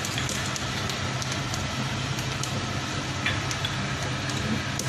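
Cumin seeds, black peppercorns and curry leaves sizzling in hot oil in a karahi, with scattered small pops and crackles, over a steady low hum.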